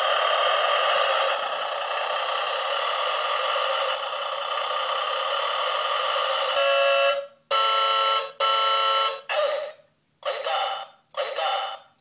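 Semi-truck novelty alarm clock's small speaker playing its wake-up sound effects: a steady rushing noise for about six seconds, then a run of about six short truck air-horn honks with brief gaps between them.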